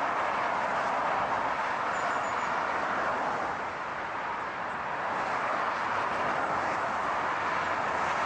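Steady rushing noise of a moving car, without clear engine tones, easing slightly about halfway through before building back.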